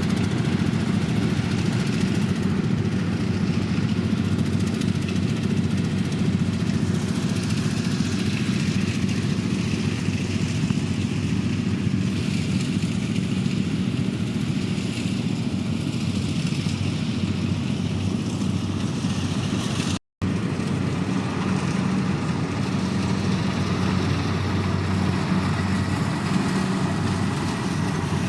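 Kubota DC105 combine harvester running steadily with a deep engine drone. The sound drops out completely for a split second about two-thirds of the way through.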